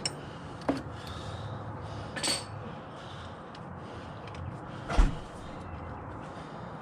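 A few light clicks and knocks of a ratchet and 17 mm socket working the oil drain bolt of a Yamaha Grizzly 90 ATV, with one louder knock about five seconds in.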